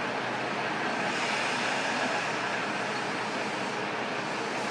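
Steady interior noise of a KiHa 125 diesel railcar, heard from the seat directly above its diesel engine with a window slightly open.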